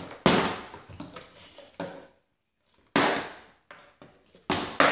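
Partly filled plastic water bottles flipped and landing on a hardwood floor: three sharp knocks, the first just after the start, then about three seconds in and again about four and a half seconds in.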